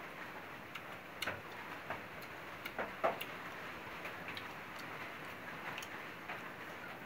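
Eating sounds: faint, irregular small clicks and smacks of food being picked from a steel plate by hand and chewed, over a steady low hiss.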